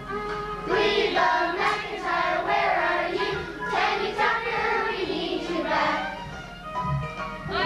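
A song sung live with musical accompaniment, the voice holding and bending long notes.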